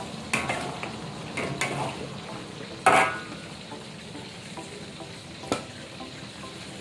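Food sizzling in a frying pan while a spatula stirs it, knocking against the pan several times; the loudest knock is about three seconds in.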